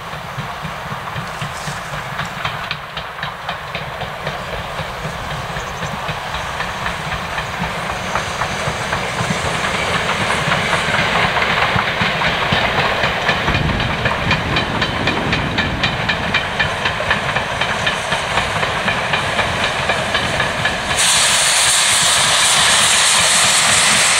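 Ivatt class 2 2-6-0 steam locomotive 46512 working hard on a steep gradient: a quick, regular chuffing of exhaust beats with steam hiss, growing louder as it approaches. Near the end a louder hiss comes in suddenly.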